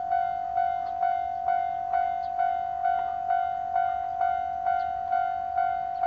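Japanese railway level-crossing alarm ringing 'kan-kan', one bell-like tone repeated evenly about twice a second, each strike fading quickly. It signals that the barriers are down and a train is approaching.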